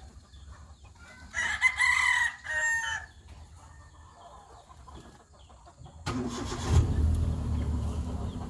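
A rooster crows about a second and a half in. About six seconds in, a Hyundai Eon's small three-cylinder petrol engine starts and keeps running, its no-crank, no-start fault now fixed.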